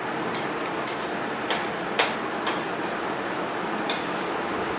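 A spoon clicking and scraping against a plate as food is scooped, a handful of sharp clicks with the loudest about two seconds in, over a steady background hiss.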